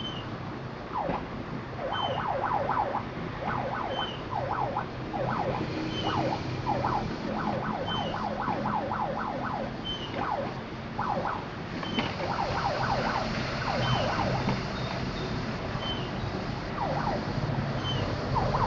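Siren-like horn sounding bursts of quick falling chirps, several to a burst, over a low engine-like rumble, with a fainter high chirp repeating about once a second.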